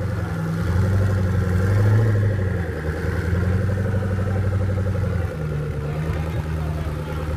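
Koenigsegg One:1's twin-turbo V8 running at idle, a steady low engine note whose pitch rises a little and settles back.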